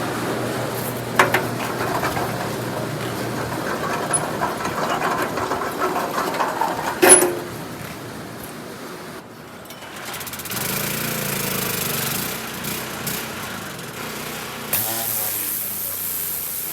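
Pressure washer spraying a truck frame: a loud hiss of the water jet with a couple of sharp knocks, then about ten seconds in the spray eases and the machine's motor is left running with a steady hum.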